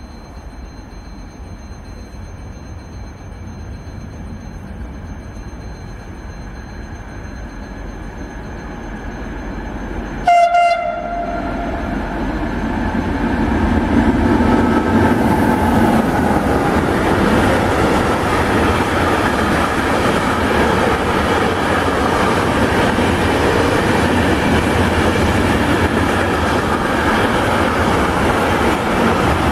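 Freight train approaching through a station: a low rumble builds, a short horn blast sounds about ten seconds in, and then the locomotive and a string of container wagons pass close by with a steady, loud rumble of wheels on rails.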